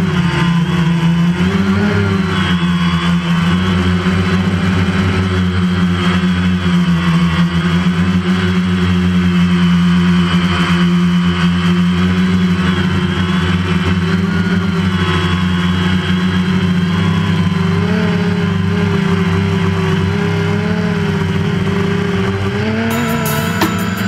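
Multirotor drone's electric motors and propellers buzzing steadily, heard close up from the drone itself, the pitch drifting slightly up and down as the motor speeds change in flight.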